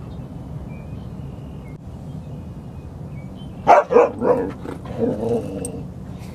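A dog barking: three loud, quick barks a little past the middle, followed by a short run of softer barking calls.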